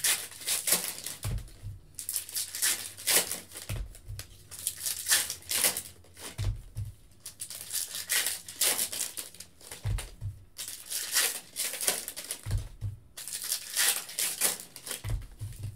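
Foil trading-card pack wrappers crinkling and tearing as packs are opened one after another, with a soft low thump every few seconds.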